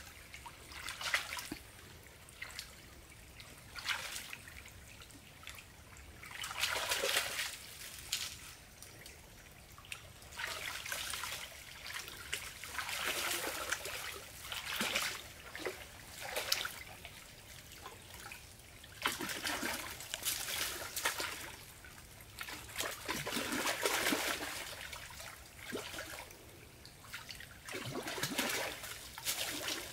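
Water in a shallow stream splashing and trickling in irregular bursts every second or two, as a person wades and works his hands through it.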